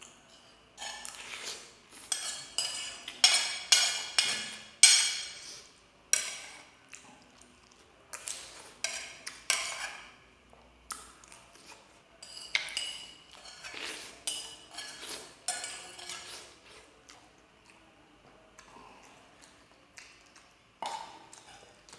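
Cutlery clinking and scraping against a plate and bowl during eating, in quick irregular bursts.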